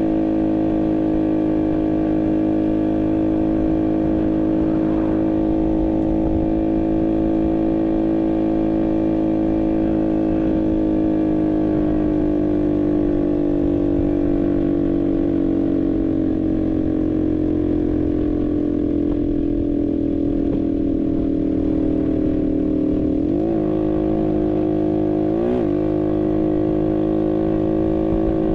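Barton Volcano 50cc moped engine running steadily under way. Its pitch sinks slowly as the throttle eases, then dips and climbs back twice near the end as the throttle is rolled off and opened again.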